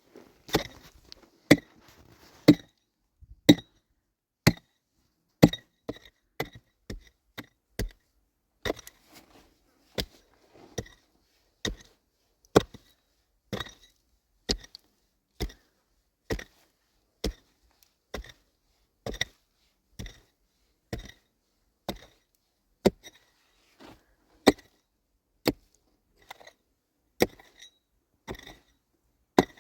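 Steady chopping, one sharp knock about every second, each blow with a brief ring.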